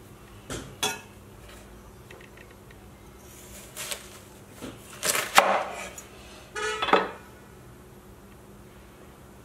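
Kitchen knife cutting a watermelon into wedges on a wooden cutting board: a few knocks of the blade on the board and crunching cuts through the rind, the loudest just past five seconds in.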